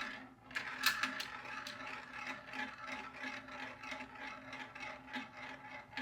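Glass marbles rolling along a marble-run track: a steady rolling rattle scattered with many small clicks.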